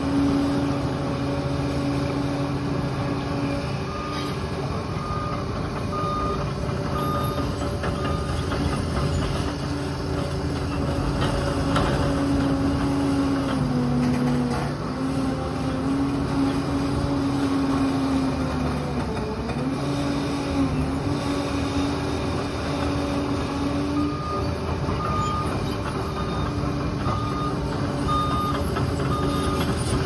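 Liebherr PR 746 crawler dozer's diesel engine running steadily, its pitch dipping briefly twice around the middle as it takes load. Its reversing alarm beeps about once a second for a few seconds starting about four seconds in, and again near the end.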